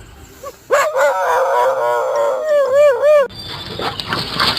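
A dog howling: one drawn-out, wavering howl starts about a second in and ends in three short yowls that rise and fall. The howl stops abruptly about three seconds in and a rougher, noisy sound takes over.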